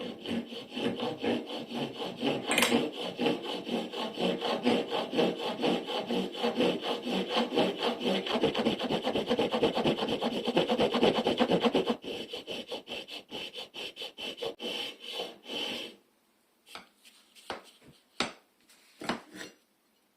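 Skew plane maker's float cutting wood in rapid back-and-forth rasping strokes. The strokes turn lighter partway through, stop, and a few single light strokes follow near the end.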